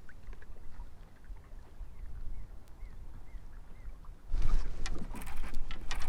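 Wind rumbling on the microphone and water moving around a kayak. About four seconds in, a louder stretch of splashing, clatter and sharp knocks begins.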